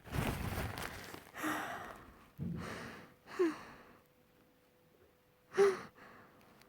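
A person taking a series of heavy, gasping in-breaths, the build-up of a dust-triggered sneeze, one with a short squeak in it. About five and a half seconds in comes a short, sharp sneeze, the loudest sound.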